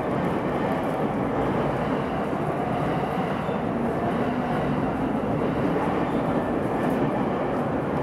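Shonan-Shinjuku Line electric commuter train passing over a level crossing: a steady, even rumble of wheels on rail.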